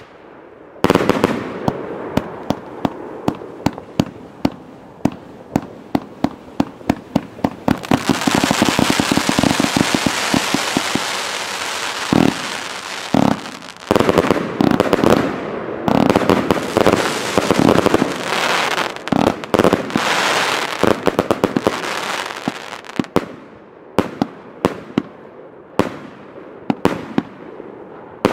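Röder 'Let's Fetz' 146-shot compound firework cake firing. It starts with a run of sharp shots, about three a second, then gives a few seconds of continuous dense hissing and crackling. More clusters of shots and bursts follow, thinning to about one a second near the end.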